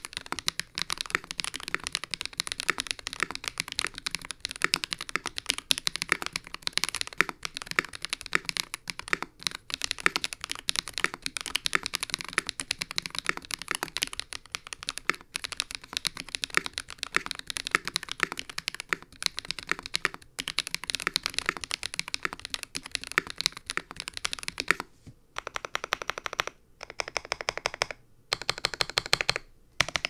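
Fast typing on a mechanical keyboard with stock RAMA Duck switches, unlubed as shipped, in an Ikki68 with a polycarbonate plate: a dense, continuous stream of keystroke clacks that breaks into short bursts with brief pauses near the end.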